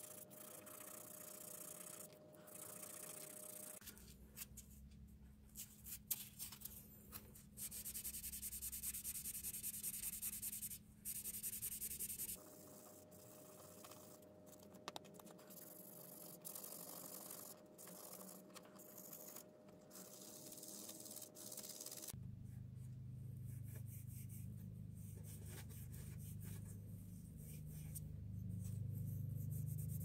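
Abrasive pad rubbed by hand over a silver and African blackwood pencil barrel: faint, repeated scratchy strokes, loudest about a third of the way in. A low hum comes in about two-thirds through.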